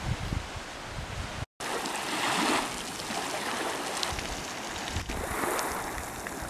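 Wind gusting across the microphone over small lake waves lapping on a sandy shore, a steady rushing wash with low buffeting, broken by a short dropout about one and a half seconds in.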